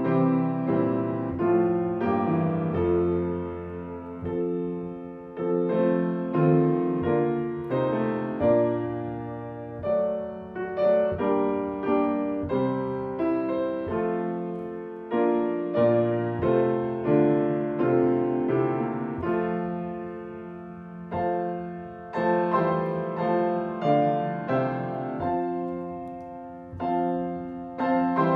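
Piano playing a slow, chordal instrumental piece, each chord struck and left to die away.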